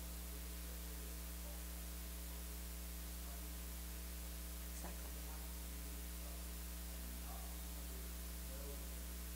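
Steady electrical mains hum with its overtones and a hiss from the sound system, with a faint, indistinct voice underneath. There is a faint click about halfway through.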